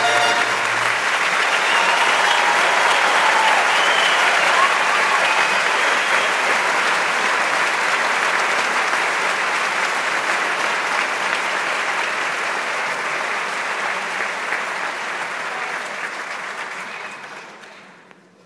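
Theater audience applauding loudly as the band's last held chord stops about a second in, with a few voices calling out in the first seconds. The applause dies away near the end.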